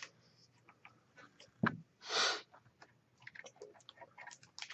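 Scattered small clicks and light taps from handling laptop screen parts, with a sharper knock and then a short hiss about two seconds in.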